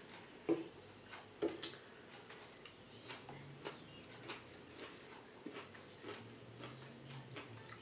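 Quiet close-up eating sounds: chewing, with scattered light clicks of a metal fork against the food and the plastic-wrapped board at irregular intervals.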